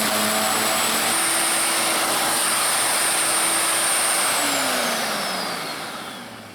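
WEN electric wood chipper running with a steady high whine, its pitch stepping up slightly about a second in. About four seconds in it is switched off: the motor winds down, the whine falling in pitch as the noise fades away.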